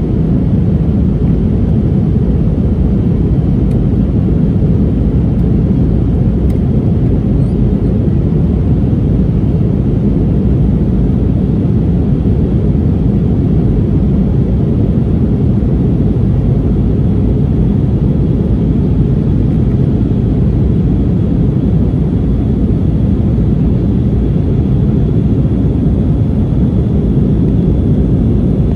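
Steady, loud cabin drone of an Airbus A319 climbing after takeoff: engine and airflow noise, deep and unchanging.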